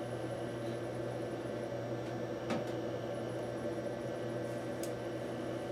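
Steady low hum of room noise, with two faint clicks about two and a half seconds apart.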